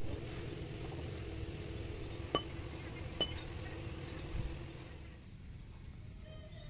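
Two light metallic clinks, a little under a second apart, each ringing briefly, over a steady low rumble and hum that fades down a little near the end.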